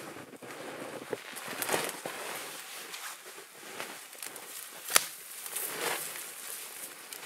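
Footsteps in deep snow and the swish of snow-laden spruce branches being pushed aside, shedding their snow. A single sharp crack about five seconds in stands out as the loudest sound.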